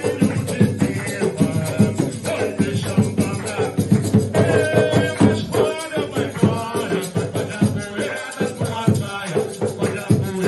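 An Umbanda ponto (sacred chant) sung over a steady percussion beat, with a shaker rattling along.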